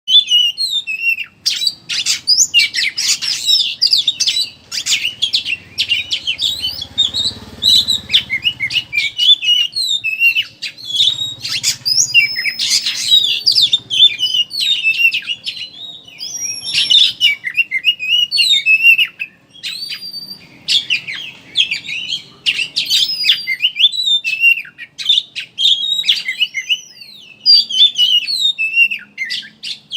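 Oriental magpie-robin (kacer) singing in the rapid 'ngeriwik' style: a dense, quick twittering chatter of many short high notes and slurred whistles with only brief pauses.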